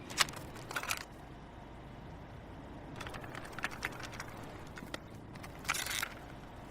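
A quiet gap between songs: low background noise with scattered short clicks and brief crackles, a cluster of them in the middle and another around three-quarters of the way through.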